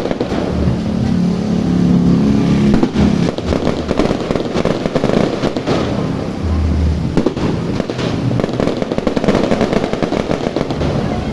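A multi-shot fireworks cake firing in an irregular run of bangs and crackling pops, with no break between shots.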